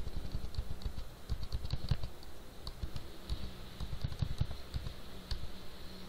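Computer keyboard keys pressed over and over, a run of light, irregular clicks, as slides are paged back one after another.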